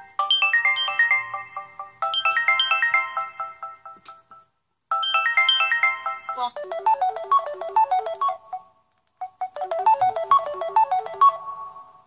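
Samsung Galaxy S3 Mini ringtone playing from the phone's speaker. A quick phrase of short, high electronic notes repeats three times with brief pauses. About six and a half seconds in, a lower-pitched phrase takes over and plays twice.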